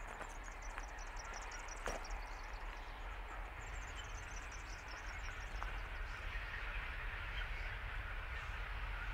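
Low rumble of a distant approaching diesel freight train, growing slightly louder, with birds chirping in quick runs during the first half.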